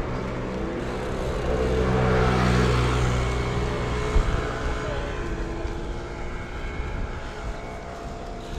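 A motor vehicle's engine hum swells to its loudest about two to three seconds in and then fades as it passes, over steady road and wind noise from riding along the street.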